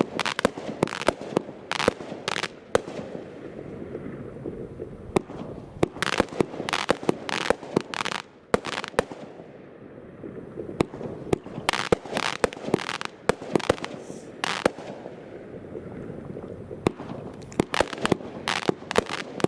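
Multi-shot consumer firework cake firing: an irregular rapid string of launch thumps and aerial breaks, with a brief lull partway through, and crackle effects among the breaks.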